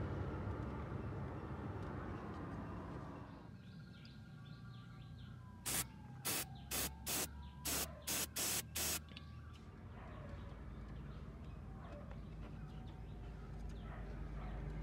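Eight short bursts of a Würth aerosol cleaner sprayed in quick succession onto the throttle body's electrical connector, cleaning its contacts to cure a throttle position sensor fault. A low steady rumble runs underneath.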